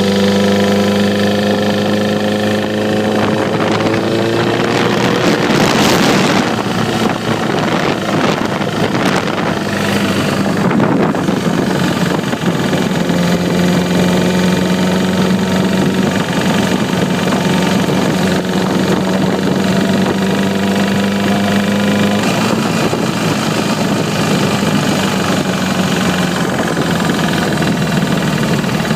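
Honda Repsol-edition motorcycle's inline-four engine idling with a ticking noise that persists after the cam chain tensioner was replaced, the cause still unknown to the owner. Its speed rises slightly a few seconds in, then it settles back to a steady idle.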